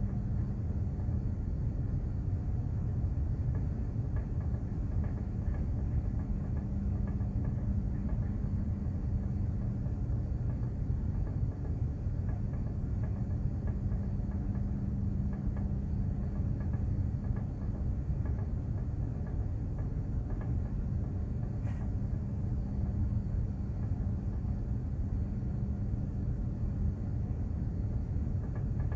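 Steady low rumble of a container ship underway at sea, with a constant hum running through it.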